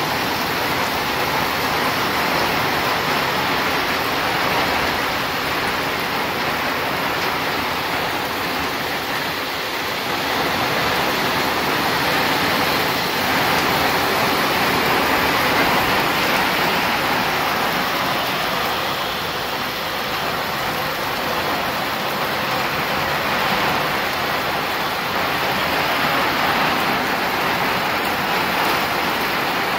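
Heavy rain pouring down steadily, a dense even hiss that swells and eases slightly.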